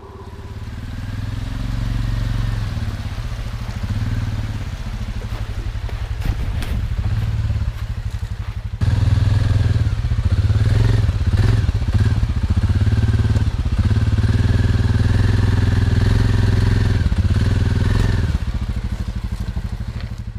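Jeep's engine running under load while driving off-road, a heavy low rumble that jumps louder about halfway through and eases off shortly before the end.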